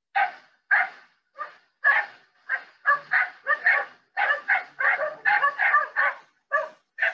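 Kelpie puppies yapping at sheep: a run of about twenty short, sharp, fairly high barks with brief gaps, coming fastest about four to six seconds in.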